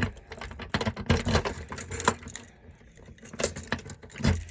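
A bunch of keys jangling and clinking as they are handled, with a few duller knocks in between.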